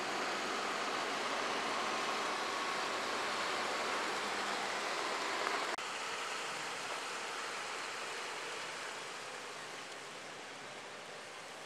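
Tractor engine running under a steady hiss as the tractor works through shallow water and mud. The sound breaks off abruptly about six seconds in and carries on a little quieter, slowly fading.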